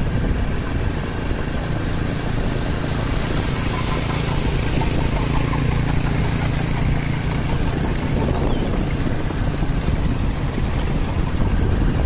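A moving vehicle's engine running steadily under constant road and wind noise; the low engine hum is strongest in the middle.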